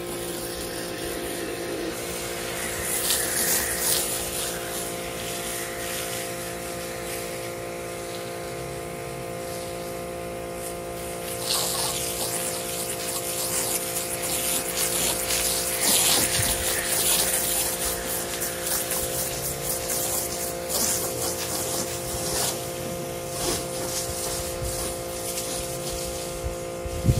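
Electric pressure washer running with a steady hum while water and foam hiss out of its foam cannon in spells, strongest about three seconds in and again from about eleven to twenty-two seconds in.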